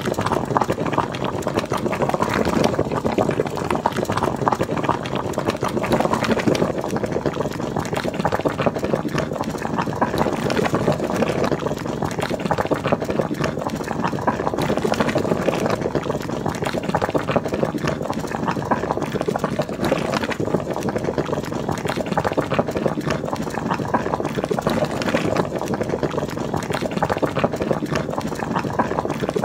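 A pot of liquid at a rolling boil: steady, dense bubbling and popping.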